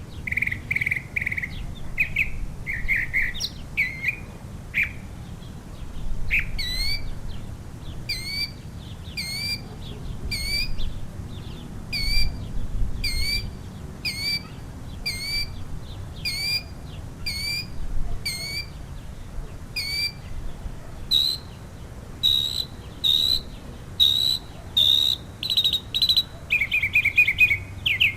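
Northern mockingbird singing. It gives a few varied phrases, then repeats one rising two-note phrase over and over, about once every three-quarters of a second for some fourteen seconds. It then switches to another repeated phrase and ends with a fast trill.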